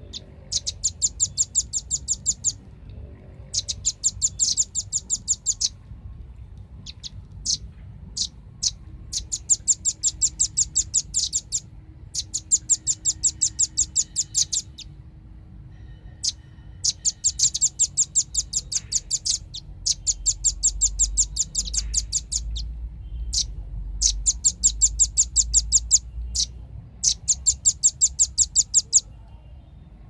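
Velvet-fronted nuthatch calls: eight rapid trills of sharp, high chip notes, each lasting about two seconds, with single chips between the trills.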